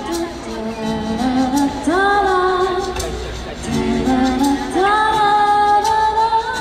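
A woman singing a slow pop ballad live over instrumental accompaniment, her notes scooping up into long held tones about two seconds and about five seconds in.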